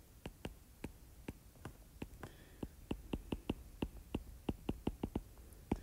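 Stylus tip tapping on a tablet screen while handwriting: a faint, irregular series of light ticks, several a second.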